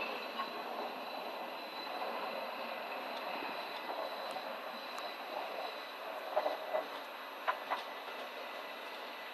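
Steady mechanical city noise with a thin high steady whine, and a few sharp clicks between about six and a half and eight seconds in.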